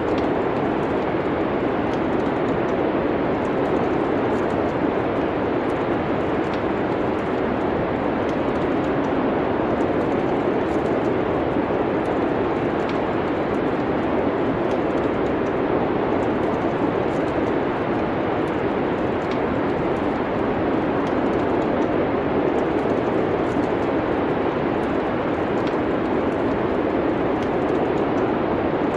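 Steady, even rushing noise like wind, with faint scattered crackles of a wood fire.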